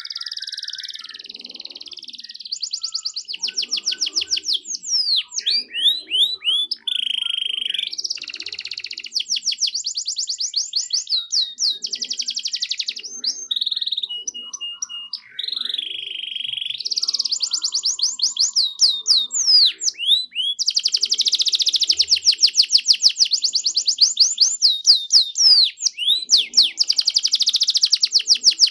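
Domestic canary singing a long, continuous song of fast trills and rolls, broken by quick rising and falling whistled notes and a few brief pauses.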